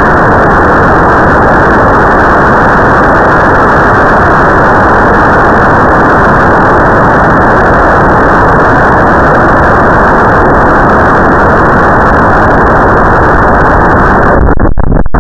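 Loud, steady rush of air streaming past a model rocket's onboard camera microphone in flight. Near the end the sound changes, with a few sharp crackles.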